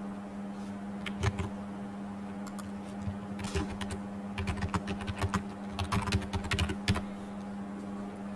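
Typing on a computer keyboard: irregular runs of key clicks, busiest in the second half, over a steady low hum.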